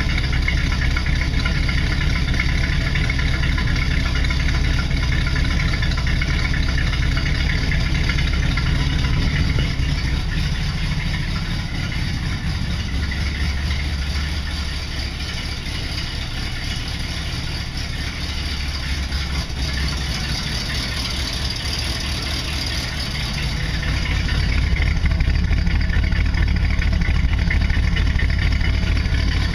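Power sander running against the primed sheet-metal roof of a truck, sanding the primer down smooth. The sound eases off through the middle and picks up again near the end.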